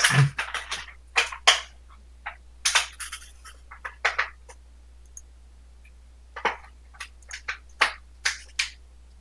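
Magic cards being handled on a table: irregular clusters of short clicks and scratchy snaps of cards being picked up, flicked and set down.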